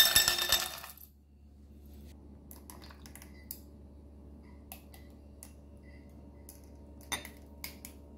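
Ice cubes dropped into a glass tumbler, clattering and clinking loudly for about the first second. After that come only a few light clicks and clinks of glass, with a sharper one near the end.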